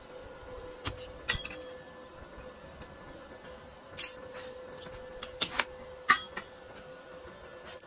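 Sharp metal clicks and taps from steel square tubing being handled while a frame is tack-welded, loudest about four and six seconds in, over a steady faint hum.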